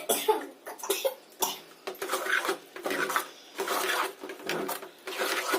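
A spoon or ladle stirring and scraping in a cooking pot of bellam pongali as the jaggery melts into the cooked rice: a string of short, irregular scraping strokes.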